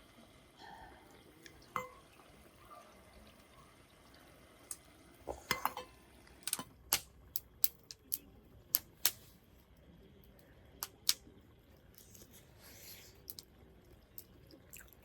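Cookware and utensils clinking: a quiet stretch, then a run of about a dozen sharp clinks and taps in the middle.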